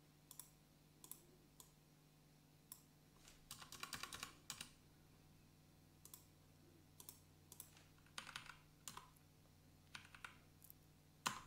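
Faint computer keyboard typing: scattered single keystrokes and short irregular bursts of keys, with a denser run of typing about three and a half seconds in.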